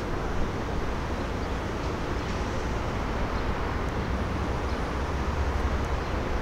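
Light rail train passing close by on the adjacent track: a steady rumble of wheels on rail, with one brief knock about half a second in. A freight train is rolling away on the other track.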